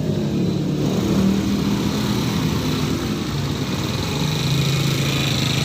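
Vehicle engine running steadily, its pitch settling lower and the sound growing stronger about three and a half seconds in.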